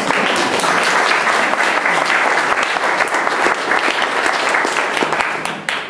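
An audience clapping: many hands applauding together, dying away near the end.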